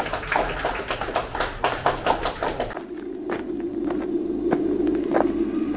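A crowd applauding, many hands clapping in a fast, dense patter. About three seconds in it cuts off abruptly, replaced by a steady low hum with a few sharp clicks.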